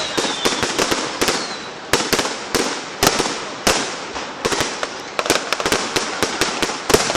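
Fireworks going off in quick succession: many sharp bangs and crackling pops each second over a continuous hiss.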